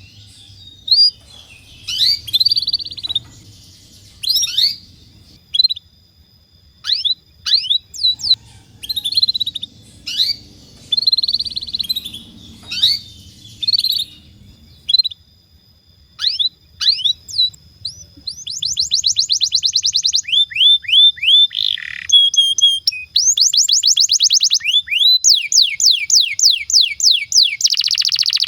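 Domestic canary singing: scattered chirps and quick falling whistled notes at first, then, about two-thirds of the way in, long rapid rolling trills that are louder.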